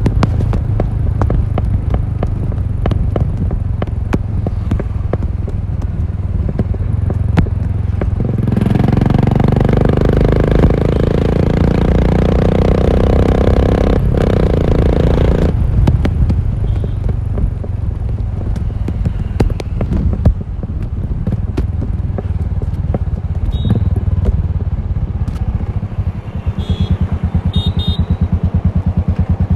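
Royal Enfield Continental GT 535's single-cylinder engine running through an aftermarket exhaust while riding. It pulls harder and louder from about eight seconds in for several seconds, then eases off, and near the end settles into a slow, even thump of separate beats.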